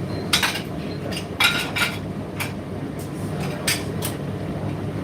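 Indesit IDC8T3 condenser tumble dryer running with a steady low rumble, with several sharp, irregular clinks on top.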